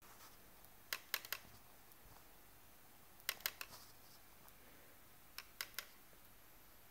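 Canon PowerShot SX50 camera, switched off, rattling as it is moved: three short bursts of three or four light clicks each, about two seconds apart. The rattle is a lens element on a linear motor moving freely while the camera is off, which Canon service calls normal.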